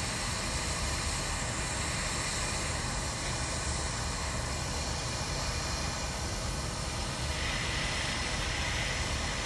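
Hot-air rework station blowing a steady hiss of hot air, with a low rumble underneath, onto a MacBook Pro logic board to desolder corroded chips.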